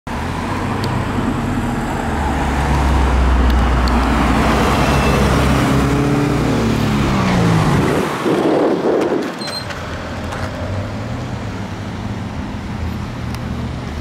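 Sports cars driving past, among them a Lexus LFA with its 4.8-litre V10, running close and loud. The engine note drops sharply as they go by, about seven to eight seconds in, with a short rush of air. It then settles into a quieter, steady engine sound as they move away.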